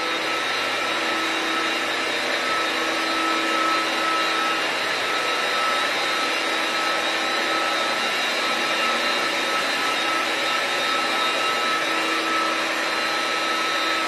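Large electric motor driving a pump-station water pump, running loud and steady: an even whirring noise with a constant low hum and a higher whine.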